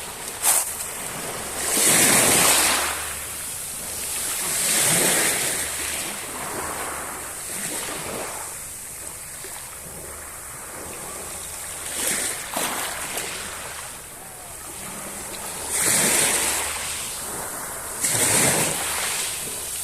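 Sea waves breaking and washing ashore, several swells a few seconds apart.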